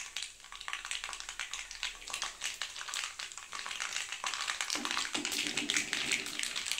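Mustard seeds spluttering in hot oil in a kadai: a dense, irregular run of small pops and crackles.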